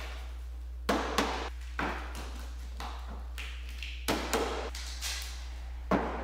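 Hands working on a plastic ride-on toy Jeep, with a handful of sharp taps and knocks on plastic and packaging: two pairs close together and a few single ones. A short scratchy rasp comes midway.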